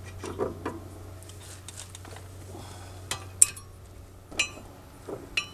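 Scattered sharp metallic clinks as a Milwaukee M18 FUEL 3/8-inch impact wrench and its socket work on the brake caliper bracket bolts, a few over several seconds, the loudest about three and a half seconds in, over a low steady hum.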